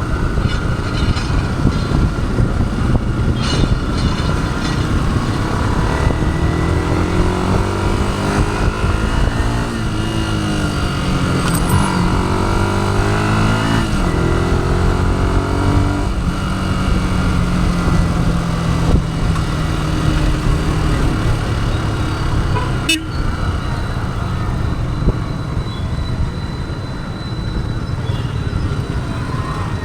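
Stock 2011 first-generation Yamaha YZF-R15's 150 cc single-cylinder engine running on the move, its pitch repeatedly rising and falling with throttle and gear changes, over a steady rush of wind and road noise. A sharp click comes a little over twenty seconds in.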